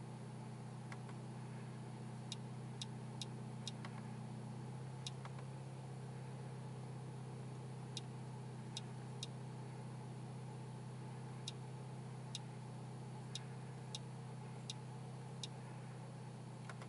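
Mercedes-AMG CLA 45 S's turbocharged four-cylinder cruising at light load, heard as a quiet, steady low hum inside the cabin; the hum shifts slightly about five seconds in. Short sharp clicks come every half second to second or so at uneven spacing.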